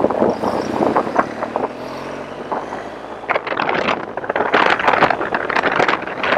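BMW R 1200 GS Rallye boxer-twin motorcycle pulling away and accelerating, its engine tone rising. From about three seconds in, loud wind buffeting on the helmet microphone builds as speed climbs past 60 km/h.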